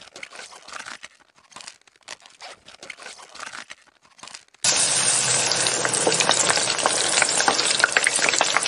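Food frying in hot oil: faint scattered crackles and pops at first, then, about four and a half seconds in, a sudden loud, steady sizzle thick with spitting crackles.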